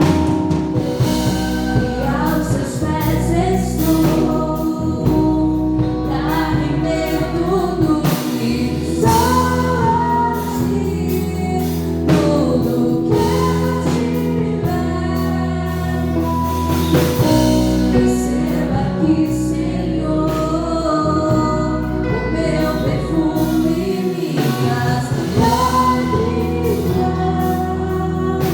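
Gospel worship song: singing over a band with a bass line and drums.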